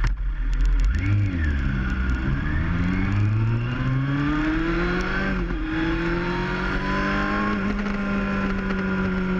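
Motorcycle engine heard from on board, pulling steadily up through the revs, with a brief dip about halfway and the revs dropping near the end.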